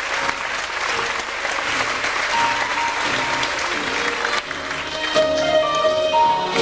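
Audience applauding over music played for a stage dance number. The clapping dies away about four and a half seconds in, and the music carries on alone with held notes.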